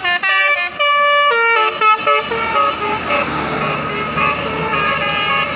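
Indonesian bus telolet horn playing a quick run of distinct musical notes. After about two seconds it settles into several tones held together over a noisy background.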